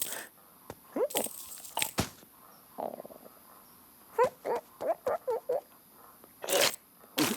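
Cartoon sound effects: a few sharp hits, then a quick run of about seven short squeaky vocal chirps from a cartoon character, then two more sharp hits near the end.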